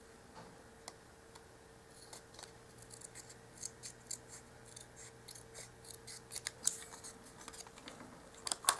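Small pointed scissors snipping printed paper, cutting out a miniature box. Faint, irregular short snips come more often after the first couple of seconds, with the loudest near the end.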